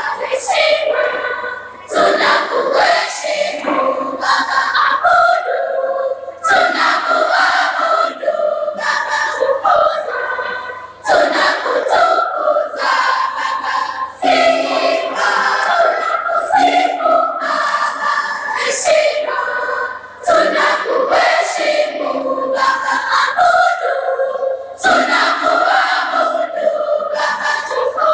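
Girls' school choir singing together in phrases, with short breaths between phrases every few seconds.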